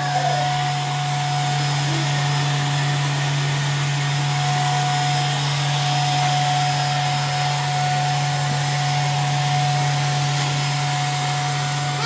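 Canister vacuum cleaner running steadily: an even motor hum with a constant whine over it.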